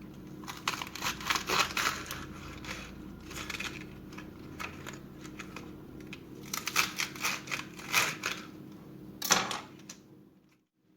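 Hands-on food preparation: several bursts of crisp crinkling and crackling handling noise, the sharpest one near the end, over a low steady hum. The sound drops out briefly just before the end.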